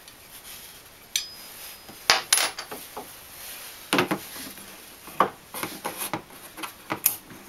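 Scattered metallic clicks, taps and light rubbing as a metal kitchen rail and its end brackets are handled and shifted into place against a cabinet, with a few sharper knocks about 2, 4, 5 and 7 seconds in.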